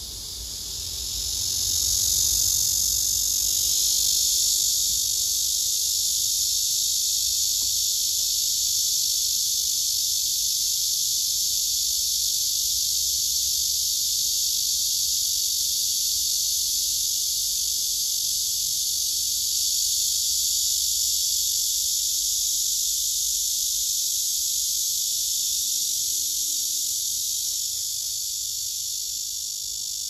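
Male cicadas singing: a loud, steady, high buzz that swells in about a second in, holds without a break, and eases slightly near the end.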